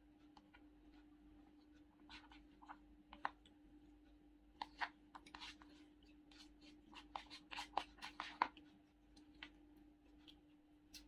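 A white plastic spoon scraping and clicking against the inside of a paper biryani bucket as rice is scooped out, in short irregular clusters, over a faint steady hum.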